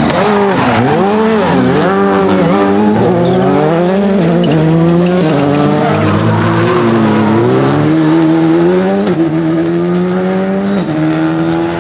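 Rally car engine driven hard: the revs rise and fall again and again as it lifts and accelerates through corners, with several quick upshifts where the pitch drops sharply, and a long climb near the end.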